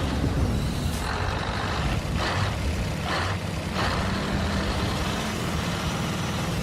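Steady low engine rumble with three short hisses about two to four seconds in.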